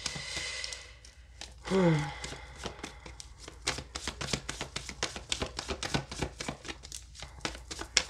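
A tarot deck being shuffled by hand: a quick, uneven run of soft card clicks and slaps. About two seconds in there is a short hum that falls in pitch.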